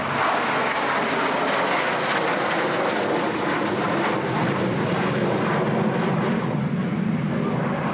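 Two Sukhoi Su-27 fighters flying a close-formation display pass, their twin turbofan engines making a steady jet noise, with a low hum growing stronger in the second half.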